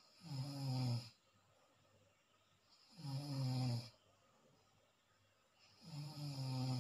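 Snoring in deep sleep: three snores about three seconds apart, each lasting about a second, with quiet breathing between.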